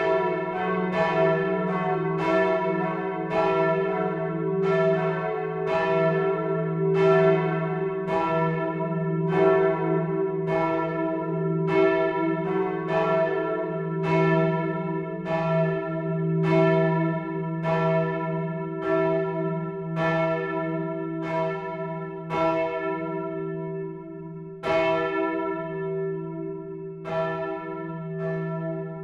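The church bells of the Martinskirche in Hamburg-Rahlstedt ringing together, strikes following one another about once a second over a long ringing hum. There is a short lull a little over twenty seconds in, after which the strikes come more sparsely.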